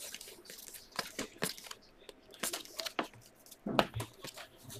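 Stack of glossy football trading cards being slid and flipped one over another in the hands, giving a string of faint scrapes and light snaps of the card stock.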